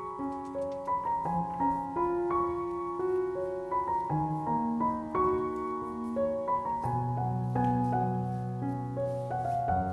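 Background piano music: a melody of single notes changing about every half second over held bass notes.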